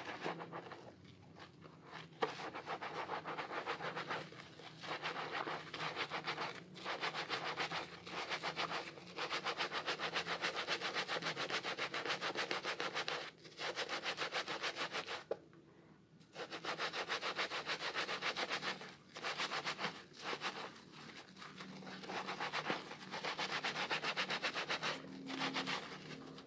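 A soaked bar of soap rubbed and squeezed between wet hands in thick lather, making fast wet rubbing strokes in runs of a few seconds with short pauses between them.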